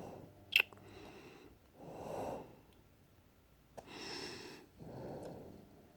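A person breathing audibly close to the microphone: five slow, soft breaths about a second apart, with one short high squeak about half a second in.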